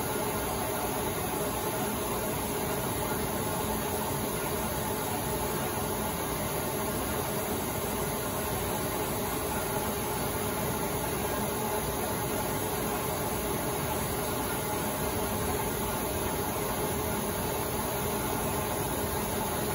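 Steady rushing hiss and drone of a flatbed stencil cutter's 1/2 HP vacuum hold-down pump running at a constant level.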